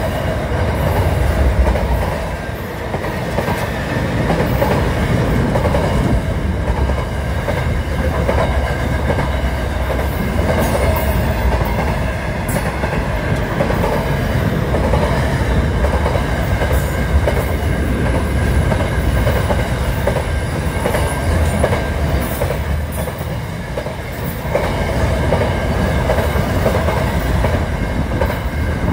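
Container freight train's wagons rolling past, a steady continuous noise of steel wheels running on the rails.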